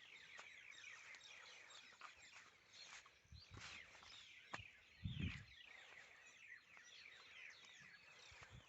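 A chorus of many small birds chirping, with short, quick, downward-gliding calls overlapping throughout. A soft low thump comes about five seconds in.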